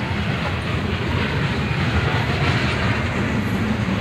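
Loaded coal hopper cars of a heavy freight train rolling past close by, steel wheels running on the rails with a steady, dense noise that swells slightly midway.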